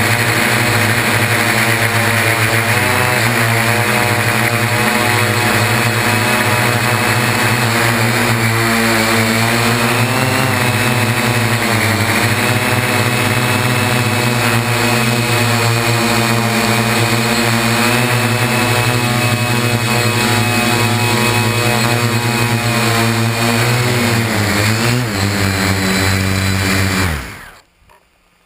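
Y6 hexacopter's coaxial propellers and brushless motors running in flight, heard up close from a GoPro hard-mounted on the frame: a loud, steady buzzing whine whose pitch wavers a few times, then drops and cuts off near the end.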